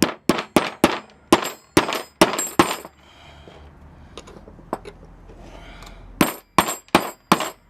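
Hammer blows ringing on steel, driving a friction-fit pin out of a metal band saw's blade guide. About eight quick, sharp strikes come first, then a pause with a few light taps, then four more strikes near the end.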